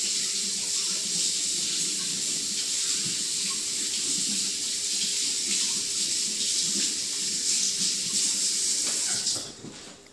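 Water running steadily from a tap into a sink for hand washing, then turned off near the end.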